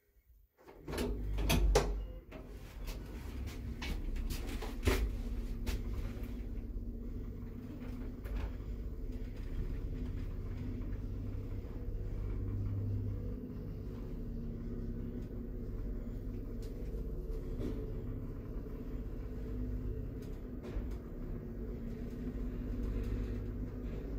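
Original 1984 ZREMB 'Osiedlowy' passenger lift starting a ride: a burst of clicks and knocks from the controls and doors about a second in and another knock around five seconds in, then the steady low hum and rumble of the car travelling, with scattered faint clicks. Near the end the car doors begin to slide open.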